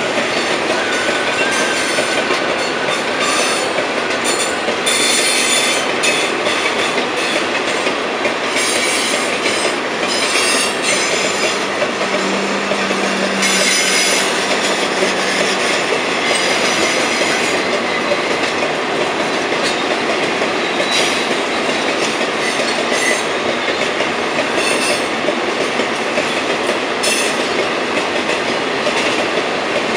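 Ore train of Lake Superior and Ishpeming hopper cars rolling past close by: a steady rumble of steel wheels on rail with irregular clanking and clatter. A thin wheel squeal sounds in the first few seconds.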